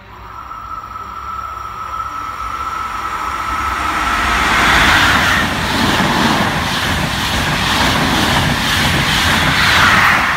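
Frecciabianca passenger train with an E414 electric locomotive passing close by on the adjacent track. Its wheels-on-rail rush builds steadily as it approaches, then runs loud and steady with a faint rhythmic beat as the coaches go by, and a thin high tone rings near the start and again near the end.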